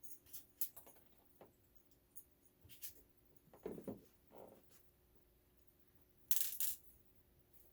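Small metal parts clinking and being handled: scattered sharp clicks and clinks, a duller clunk midway, and a short loud rattle about six and a half seconds in.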